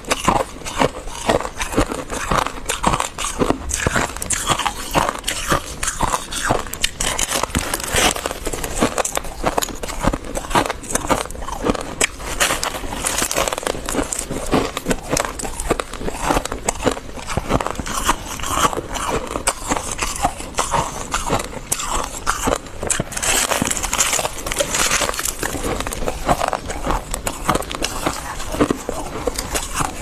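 Freezer frost crunching close to the microphone as it is chewed and crushed, a dense, unbroken crackle of breaking ice crystals.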